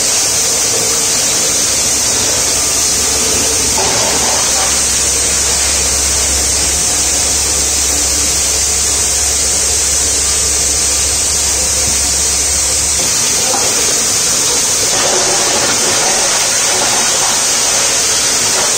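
LDPE plastic container and wrapper grinder with blower running while grinding plastic wrappers: a loud, steady rushing hiss as the blower carries the ground flakes through the discharge. A low hum comes in about four seconds in and drops away about thirteen seconds in.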